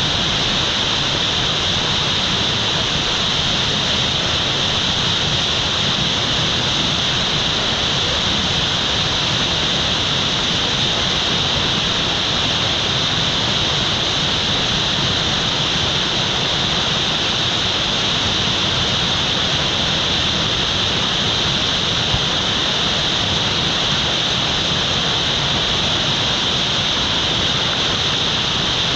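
Whitewater rushing steadily through a river play hole, an even hiss with no breaks.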